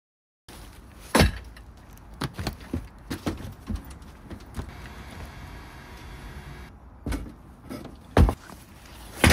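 Knocks and thumps of camping gear being moved about in a car's cargo area, with a louder thump about eight seconds in and another near the end.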